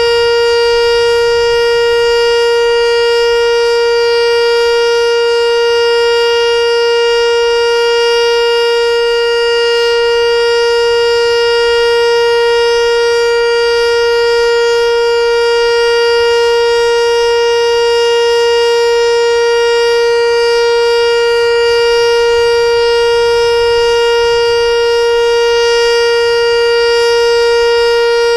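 American Signal Corporation T-112 electronic outdoor warning siren sounding its steady Alert signal for the monthly test: one loud, unchanging tone with a stack of overtones.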